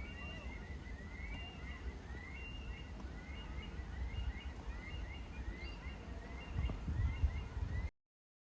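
Birds calling, a steady series of short upward-sweeping chirps repeated one or two times a second, over a low rumble that swells near the end. The sound cuts off abruptly about eight seconds in.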